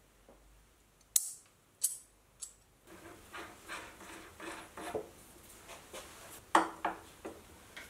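Small metal parts clicking: an ER32 collet snapped into its clamping nut, three sharp clicks about half a second apart. Then quieter, fairly even clicking and scraping as the nut is threaded onto the collet chuck by hand, with one sharper click near the end.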